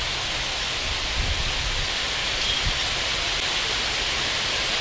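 Steady hissing background noise with a couple of faint low thumps; no shot is fired.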